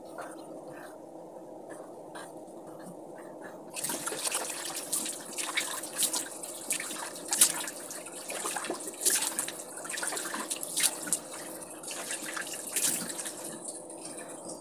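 Water splashing in a basin as lather is rinsed off a face, in irregular, quick splashes that begin about four seconds in.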